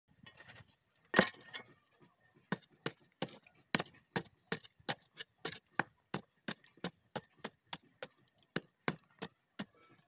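A thin metal rod knocking and chipping at the hardened clay of a pit forge's mouth: one loud knock about a second in, then a steady run of sharp knocks, about three a second.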